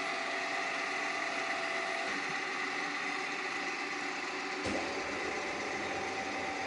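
DONAU radial drilling machine running, a steady mechanical hum and whine from its drive and gearing. About two-thirds of the way through there is a single clunk, after which the hum runs lower.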